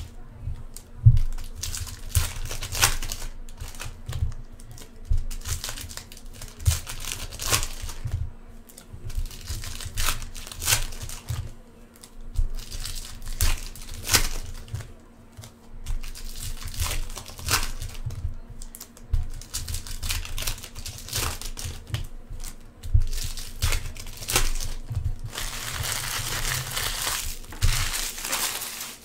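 Foil wrappers of 2014 Topps Chrome Mini football card packs being torn open and crinkled by hand, in repeated short bursts, with a longer, denser stretch of crinkling near the end.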